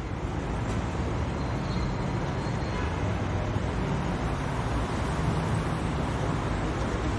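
Steady road-traffic noise, an even rumble with hiss that cuts in abruptly just before and holds level throughout.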